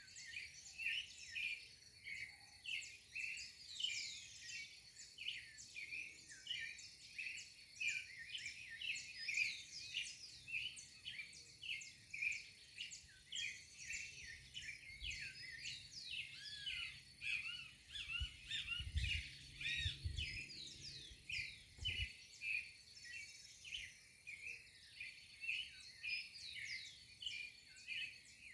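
A dawn chorus: many small birds chirping and singing at once, short calls and quick up-and-down whistles overlapping without a break. A few low bumps come about two-thirds of the way through.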